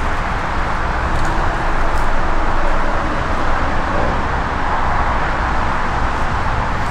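Steady noise of highway traffic on Interstate 94: tyres and engines blended into one continuous rush, with no single vehicle standing out.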